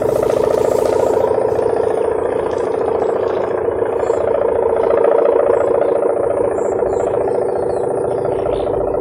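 A kite's sendaren (a wind-driven hummer) droning steadily with a buzzing, engine-like sound of the 'mesin brujul' style, swelling slightly about five seconds in.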